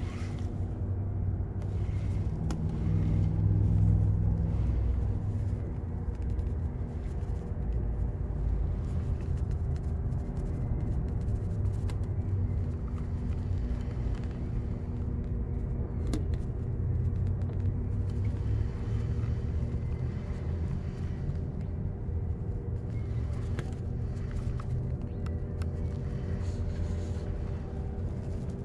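An engine running steadily: a low rumble under a constant hum.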